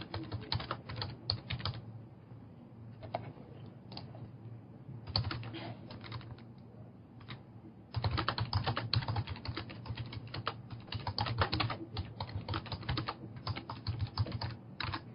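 Typing on a computer keyboard: a quick run of keystrokes, a few seconds of scattered taps, then steady fast typing from about halfway through.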